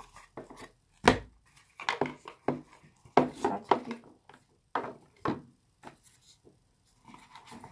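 Cardboard packaging of an earbuds box being handled: irregular taps, knocks and light rustling, the sharpest knock about a second in.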